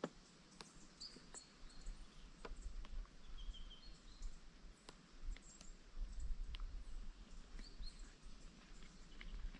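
Faint outdoor bush ambience: short high bird chirps scattered throughout, a few sharp small clicks, and a low rumble underneath.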